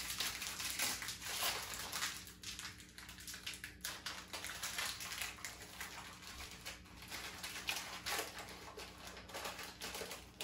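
Plastic Oreo cookie package crinkling in irregular crackles as it is handled and opened by hand.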